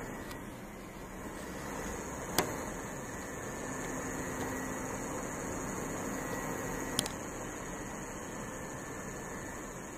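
Steady hiss of an air traffic control radio recording between transmissions, broken by two sharp clicks about four and a half seconds apart.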